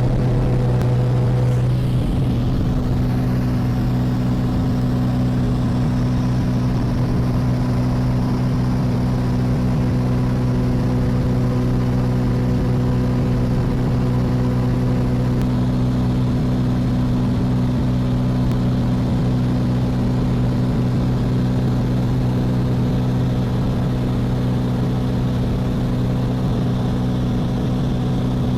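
Steady engine drone with a constant low pitched hum that holds unchanged throughout.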